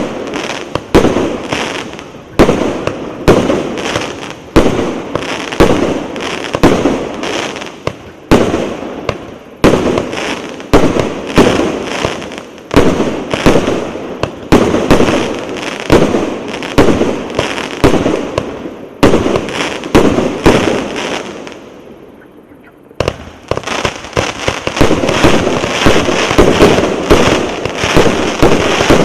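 238-shot 'Big Ben' fireworks battery firing volley after volley: sharp bangs about once a second, each followed by crackling. About twenty seconds in, the shots die away into a short lull, then it starts again with denser, steadier crackling.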